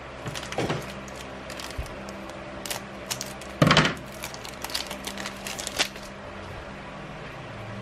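Foil-plastic Magic: The Gathering booster pack wrapper being torn open and crinkled by hand. It makes a few small crackles, the loudest burst a little before halfway, then a quick run of crinkles that dies down about six seconds in.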